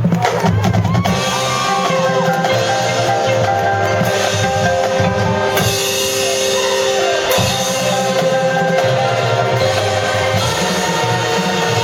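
Marching band music: mallet percussion (marimba, xylophone, glockenspiel) playing over held notes and a pulsing low bass line.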